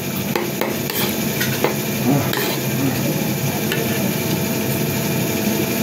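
Metal spoon and fork scraping and clicking against a ceramic plate while scooping rice: scattered light clinks, most in the first couple of seconds, over a steady hum and hiss.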